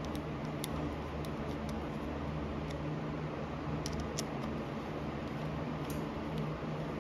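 Screwdriver turning and tightening small screws on a Harley-Davidson CV carburetor body, giving sparse light metallic clicks, over a steady low hum.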